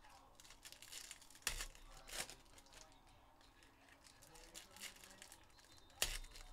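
Trading card pack wrappers crinkling and tearing as Panini Prizm packs are opened by hand, with sharp crackles about one and a half, two and six seconds in.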